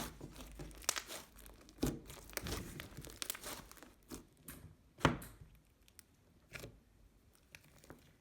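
Slime being squished, stretched and poked by hand, giving irregular clicky crackles and pops. The pops come thick at first and thin out to a few isolated ones toward the end.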